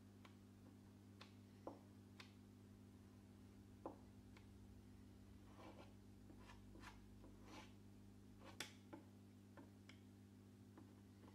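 Faint scrapes and light clicks of a metal filling knife pressing and smoothing putty into a joint of a painted wooden door, a few short strokes at a time, over a steady low hum.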